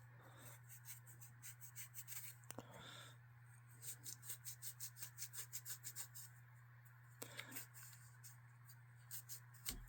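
Faint, quick back-and-forth rubbing of a Neverdull wool polishing pad on a knife's steel liner, about four strokes a second in spells, over a steady low hum.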